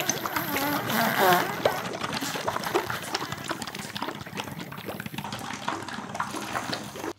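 Liquid slurping and gurgling as a yogurt drink is sucked up through the long straw of a drinking helmet, with irregular small pops and clicks.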